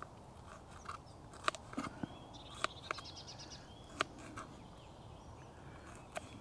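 Knife cutting a bell pepper into small pieces: irregular sharp cuts, about eight in the few seconds. A bird sings a quick chirping trill about halfway through.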